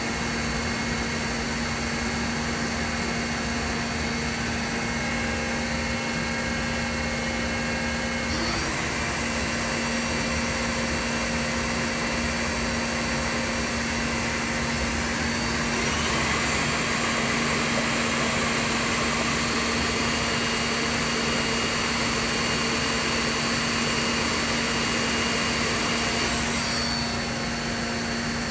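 Mori Seiki NL 3000 Y CNC lathe running with its spindle and chuck spinning, a steady machine hum and whine with no cutting. The sound shifts about eight seconds in, grows louder about sixteen seconds in, and eases back down near the end.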